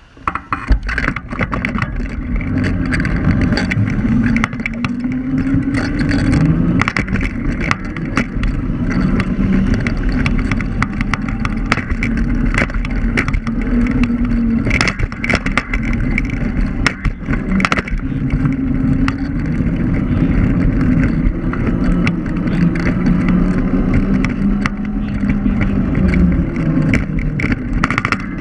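Electric scooter riding over pavement, heard from a camera mounted on it: a motor hum that rises and falls in pitch with speed, frequent rattles and knocks from the rough surface, and low wind rumble. It sets off abruptly about half a second in.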